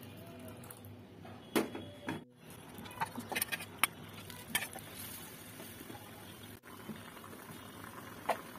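Fish curry simmering and bubbling in a pan, a faint steady hiss with a few sharp pops and clicks scattered through it.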